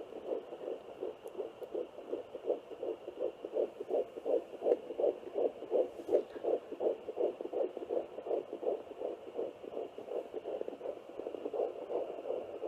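Fetal heartbeat picked up by a handheld fetal Doppler and played through its speaker: a fast, even pulsing of about three beats a second, with a faint steady high tone beneath it. The fast rate marks it as the baby's heartbeat rather than the mother's slower one.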